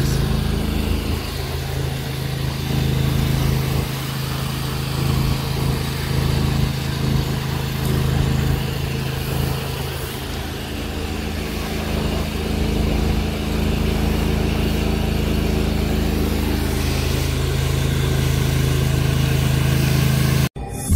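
Small engine on a pressure-washing rig running steadily at a constant speed, with the hiss of water spraying from a hose. The sound cuts off abruptly near the end.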